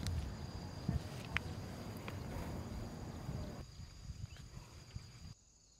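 Low outdoor background noise with a few faint clicks and a steady faint high-pitched whine, dropping away to near silence near the end.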